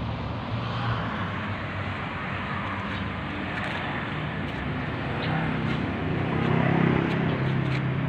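Honda CBR250 motorcycle engine running through an aftermarket SC Project exhaust, a steady low note that grows louder about five seconds in and eases slightly near the end.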